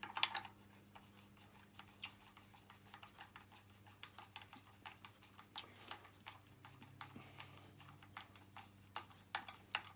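Faint, irregular clicks and light metallic ticks of hand tools and bolts as the regulator is bolted onto the engine, some in quick little runs, over a steady low hum.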